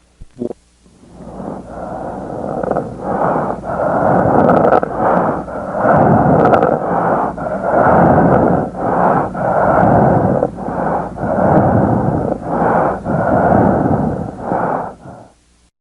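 Death rattle of a dying patient, heard over the mouth: a loud crackling rattle of breathing through secretions pooled in the airway, the sign of approaching death. It builds over the first couple of seconds, swells and falls in quick repeated pulses, and stops shortly before the end.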